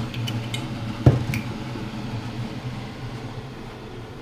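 Steady low mechanical hum with a single sharp knock about a second in and a few faint light clicks around it.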